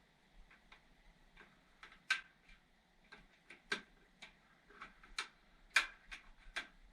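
A series of about a dozen sharp clicks and light taps at uneven intervals, the loudest a little after two seconds in and near six seconds in.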